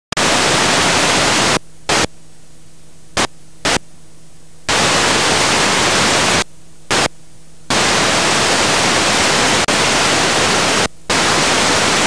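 Harsh static noise played loud through speakers, cutting on and off abruptly in irregular bursts, some lasting a second or two and others only a fraction of a second. A low hum lies underneath in the gaps.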